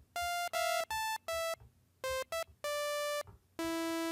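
Software synthesizer playing a sawtooth wave: a quick run of about eight short separate notes at different pitches, each rich in harmonics. The last note, near the end, is lower and held a little longer.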